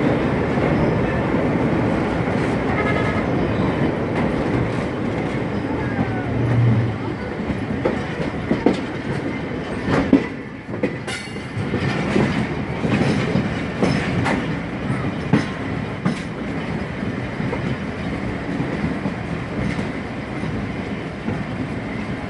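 Passenger train coaches running along the track, heard from an open doorway: a steady rumble of wheels on rail, with sharp clicks and knocks as the wheels cross rail joints and points, most of them from about eight seconds in.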